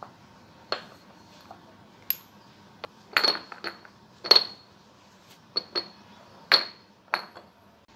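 Glazed ceramic jars and their ceramic lids clinking as they are handled and wiped: about ten sharp clinks, each with a short ring, at irregular intervals.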